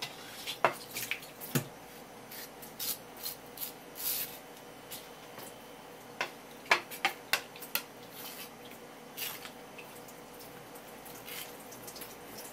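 Irregular sharp clicks and taps of a kitchen knife working against a wooden cutting board and the eel's backbone as a conger eel is filleted, with a cluster of quick clicks about two-thirds of the way through.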